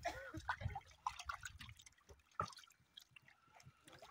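Diluted clay-brick chemical sloshing and dripping in a metal tin as a hand stirs it: irregular small splashes and drips, busiest in the first second, with one sharper splash a little past halfway.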